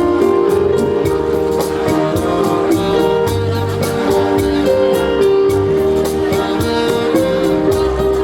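A live band playing a song with a steady beat, bass notes and a sustained melody line.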